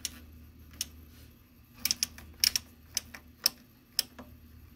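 Detent clicks of the rotary digit-setting knobs on a Data Precision 8200 DC calibrator being turned step by step. There are about ten sharp clicks at uneven intervals, several in quick succession around the middle.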